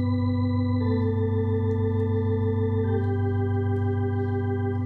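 Electronic organ playing a slow hymn in sustained chords over a held bass note, the chord changing about a second in and again about three seconds in.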